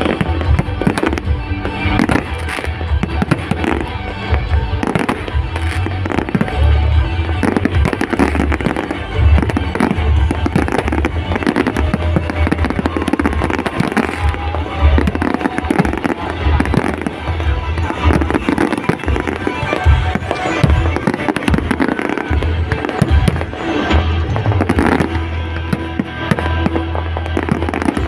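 Fireworks display: many rockets bursting and crackling in quick, irregular succession, over loud music with a heavy bass beat.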